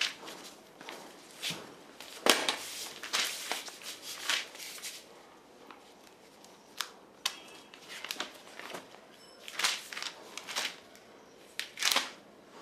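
Magazine pages being turned and handled: a series of brief paper rustles and soft clicks, the loudest about two seconds in and near the end.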